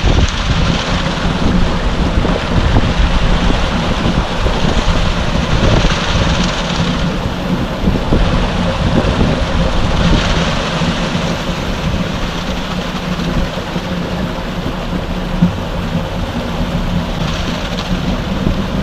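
Concrete mixer truck running steadily while its drum discharges concrete down the chute into a tremie hopper, with a steady low engine hum under the noise of wet concrete sliding and pouring.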